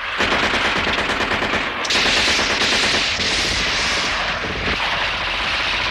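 Sustained automatic gunfire from several submachine guns, rapid shots running into one another, getting louder about two seconds in.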